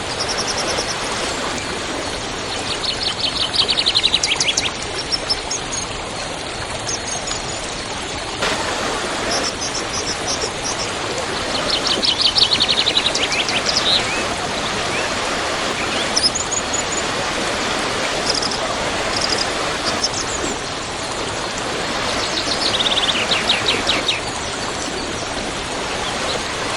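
A waterfall rushing steadily, with a songbird singing a rapid trilled phrase three times, each lasting about two seconds, and short high chirps between.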